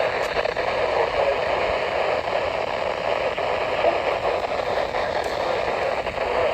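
Steady radio static: an even hiss from a weather radio receiver, with no clear voice coming through.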